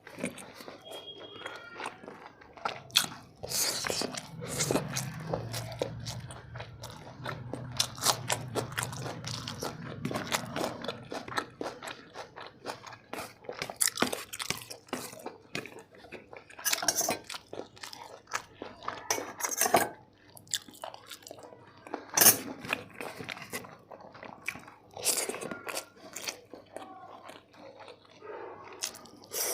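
Close-miked chewing and biting of chicken biryani: rice and meat being chewed with wet mouth clicks and smacks, a few sharper ones standing out.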